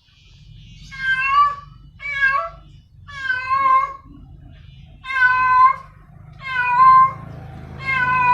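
Female cat in heat calling for a male: six drawn-out meows, each bending up and down in pitch, roughly one every second or so, over a steady low hum.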